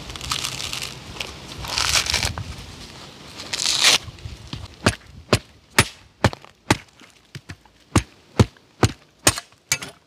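Fibrous husk of a dry coconut being torn and worked. A stretch of rustling and tearing is followed, about five seconds in, by a run of sharp cracking strikes, roughly two a second.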